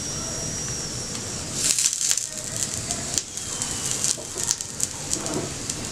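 Paratha frying on a hot tawa with a steady sizzle, while a steel spoon spreads ghee over it. The spoon makes a run of scratchy scrapes and light clicks from about a second and a half in.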